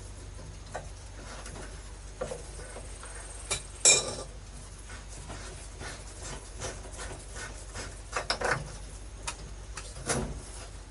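Adjustable wrench clinking and scraping against a metal valve fitting on a water pipe as it is turned, in scattered sharp clicks; the loudest clank comes about four seconds in, with a short run of clinks near the end.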